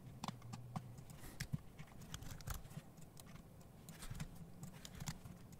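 Faint, irregular clicks of a computer mouse and keyboard: button clicks, scroll-wheel ticks and keys being typed.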